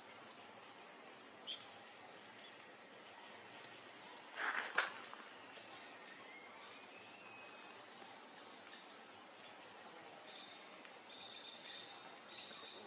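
Steady chorus of insects, a continuous high-pitched tone with fast pulsing chirring, in forest ambience. A short loud sound breaks in about four and a half seconds in, and a faint rising whistle follows around six seconds.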